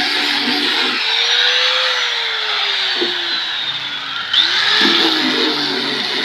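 Electric sanding machine running against wood: a steady abrasive hiss with the motor's whine sliding slowly down in pitch, then jumping back up about four seconds in.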